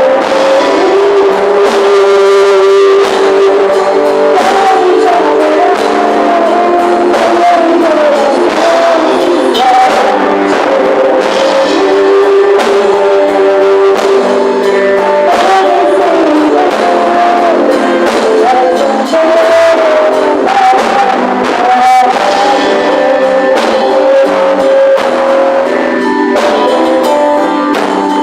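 Christian praise band playing a song in rehearsal: a sung melody over guitar and drum kit.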